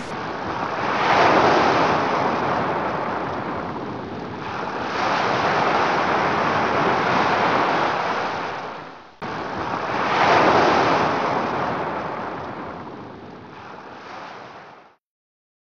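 Surf breaking on a beach, the wash of the waves swelling and ebbing in slow surges. It breaks off abruptly about nine seconds in and starts again, then fades out and stops near the end.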